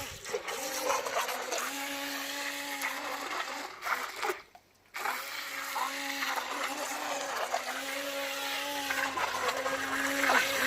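Small electric motor of a mini RC speed boat whining as it runs through pool water, over a hiss of spray. Its pitch steps up and down with the throttle, and the sound drops out briefly about four seconds in.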